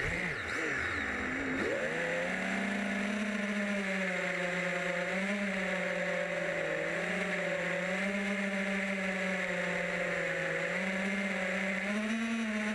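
Multirotor drone's electric motors and propellers whining, heard from the drone's own camera. The pitch drops sharply and climbs back within the first two seconds as the drone rolls over, then holds steady with small rises and falls as the throttle is adjusted in low flight.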